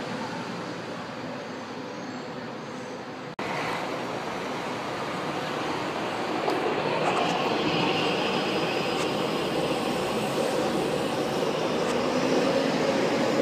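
São Paulo Metro Line 1 train approaching the station, its running noise growing steadily louder, with a high whine for a few seconds around the middle. The sound jumps abruptly about three seconds in.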